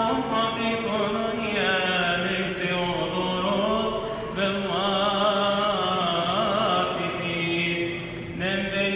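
A priest's voice chanting a Coptic Orthodox liturgical hymn: long held notes decorated with wavering melismatic runs, over a steady lower held tone.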